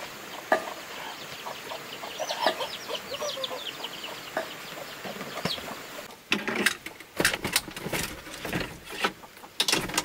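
Chickens clucking, with many short high chirps, through the first half. From about six seconds in, a run of loud knocks and clatters takes over.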